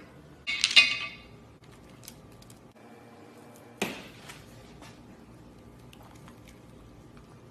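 Slime being handled by hand: a short burst of crackling and popping about half a second in, a few faint ticks, then one sharp click near the middle.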